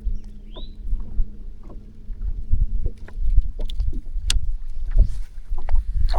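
Water lapping and slapping against a fishing boat's hull, an uneven low rumble with scattered knocks and clicks.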